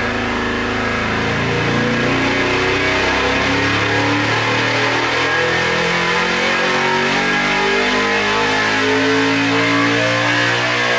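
347-cubic-inch small-block Chevy V8 race engine, running on alcohol, making a dyno pull under load: engine speed climbs steadily from about 3,300 to about 6,800 rpm, its pitch rising throughout. Heard through the glass of the dyno cell's window.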